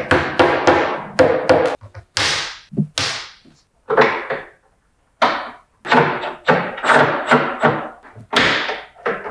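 Irregular thunks and taps, some with a short ring: a hammer knocking Blum concealed hinges into a cabinet door, then the door being fitted to a kitchen base unit.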